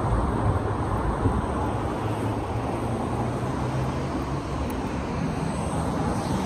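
Steady city street traffic noise: a continuous low rumble of passing cars and engines.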